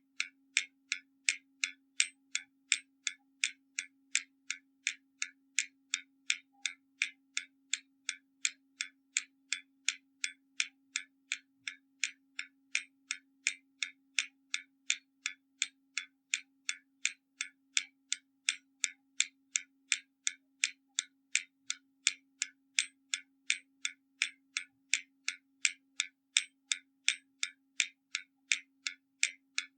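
Hermle mechanical skeleton clock ticking steadily, about two crisp ticks a second with a slight tick-tock alternation in strength.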